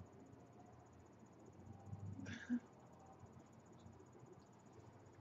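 Near silence: room tone, with one brief faint sound about two seconds in.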